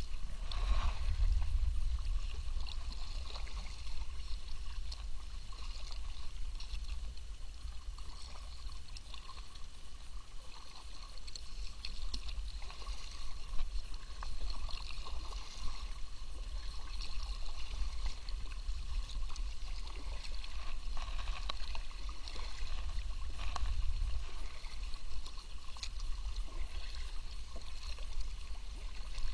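Kayak paddle strokes: the blades dipping into calm water and dripping as they lift, with small irregular splashes and trickles over a steady low rumble.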